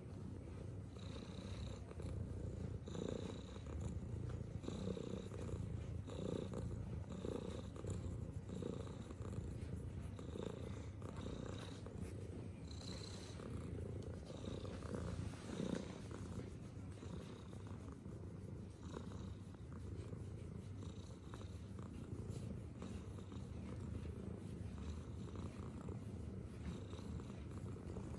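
Tuxedo cat purring steadily while being stroked on the head and chin, the purr swelling in soft pulses about once a second.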